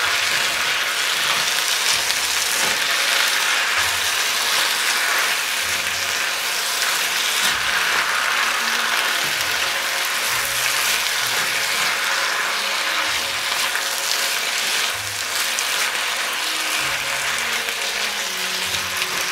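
Beef and Chinese broccoli sizzling in a wok with a steady hiss as they are tossed, the spatula scraping and clattering against the wok.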